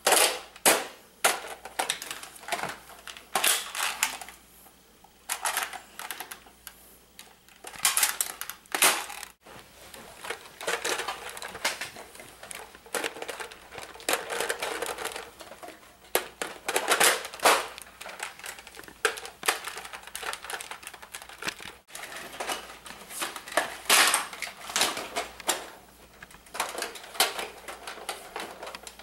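Plastic Nerf toy blasters being loaded and primed: many sharp plastic clicks and clacks from pump slides, priming handles and clips, coming in separate clusters.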